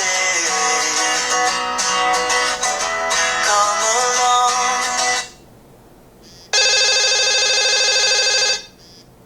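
Nokia 6700 Classic phone's loudspeaker playing a ringtone, a plucked, guitar-like melody of many notes, which stops about five seconds in. After a short gap comes a steady buzzing tone lasting about two seconds, with a few faint short blips around it.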